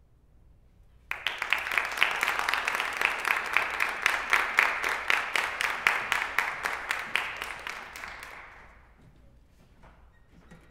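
Audience applauding: the applause starts suddenly about a second in, holds for several seconds, then fades out.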